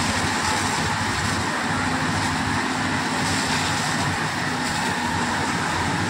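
Steady hiss of a fire hose jet spraying water and foam, over the even drone of an engine running.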